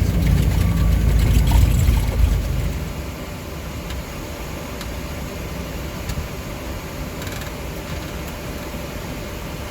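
Boeing 737 flight deck noise on the landing rollout: a loud low rumble for the first two seconds or so that eases off, then a steady lower rush of airframe and engine noise as the aircraft slows.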